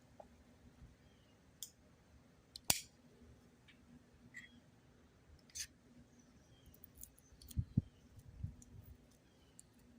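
Scattered faint clicks and scrapes of fingers picking and peeling at protective tape stuck to a plastic hose nozzle, the sharpest click about three seconds in and a few more near the end.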